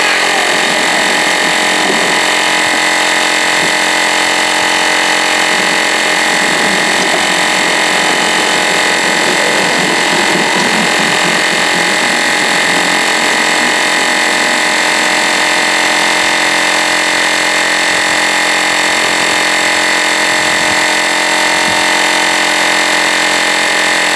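Cordless battery-powered portable air compressor (tire inflator) running loudly and steadily as it pumps up a tire toward its set pressure, a constant mechanical whine with hiss.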